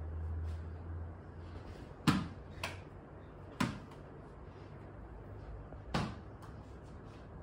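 A few sharp knocks of a ball in home cricket play, hit and bouncing off the hard floor and walls of a room: the loudest about two seconds in, a weaker one just after, then two more about a second and a half and four seconds later.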